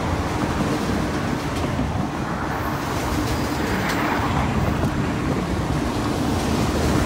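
Freight train of autorack cars rolling past, a steady rumble of wheels on rail that rises slightly about four seconds in.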